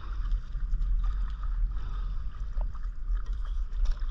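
Water sloshing and lapping around a stand-up paddleboard on calm sea, heard as an uneven low rumble with faint splashy hiss and a few light ticks.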